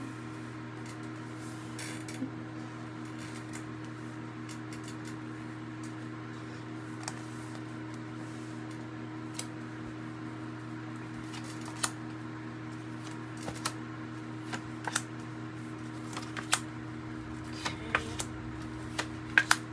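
Tarot cards being dealt and laid down on a leather mat: scattered soft taps and card slaps that come more often in the second half, over a steady low hum.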